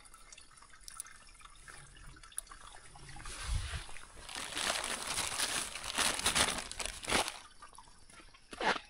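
Water trickling and dripping, with a stretch of louder rustling and splashing from about four to seven seconds in.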